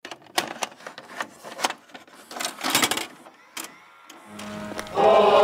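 A run of irregular mechanical clicks and clatters, then a low steady hum about four seconds in, with music starting near the end.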